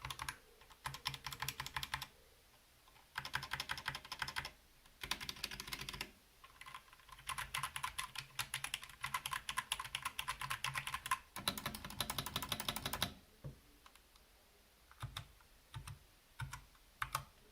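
Keystrokes on a DK61 Pro mechanical keyboard with brown switches: several fast runs of typing lasting one to four seconds each, then, for the last few seconds, only a handful of single key presses.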